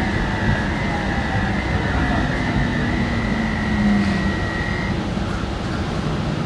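Driverless Copenhagen Metro train (AnsaldoBreda) running on its track, heard from inside the front car: a steady rumble of wheels on rail under electric motor whine. A high whine stops about five seconds in, and a lower tone drops in pitch just before it.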